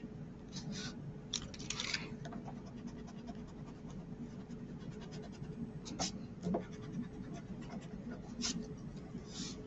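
Pencil lead scratching on paper in several short strokes drawn along a plastic ruler, with pauses between them. A low steady hum runs underneath.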